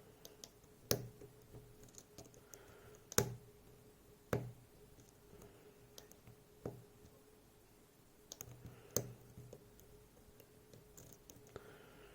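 Sharp metallic clicks from lock picks working the sliders of an ASSA DP4400 (DP11) lock: about five distinct clicks a second or two apart, with lighter ticks between.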